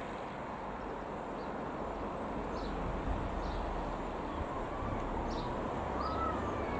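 Steady wind noise on the microphone, with a few short, high bird chirps.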